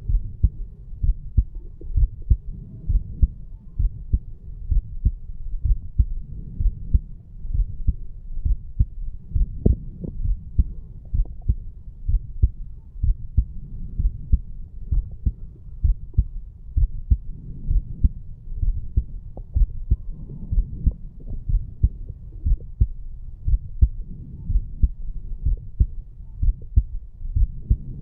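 A human heartbeat recorded at the mitral valve area of the chest, the regular lub-dub of the valves closing, strong and steady just after exercise.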